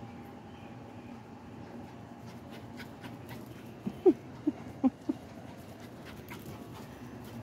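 Small puppy giving five short yips in quick succession about four seconds in, each dropping in pitch.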